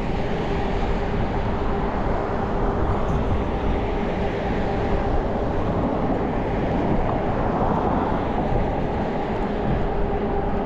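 A train running steadily: a continuous rumble with a constant hum.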